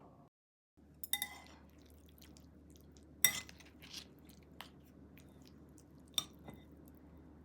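Scattered sharp clicks and light clinks of small hard objects being handled, the loudest about three seconds in, over a faint steady hum.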